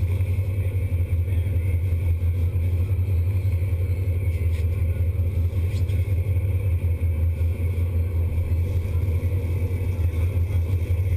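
Sportfishing boat's engine running steadily, a low, even drone.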